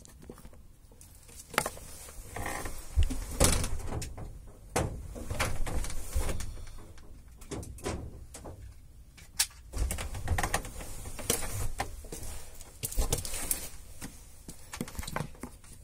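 Irregular handling noise: rustling and scraping with scattered sharp knocks and clicks, as objects are moved about close to the microphone.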